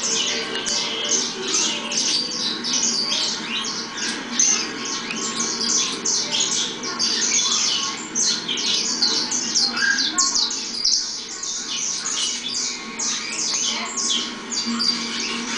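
Many caged saffron finches (canário-da-terra) chirping and calling at once, a dense, unbroken stream of rapid high calls, over a steady low hum.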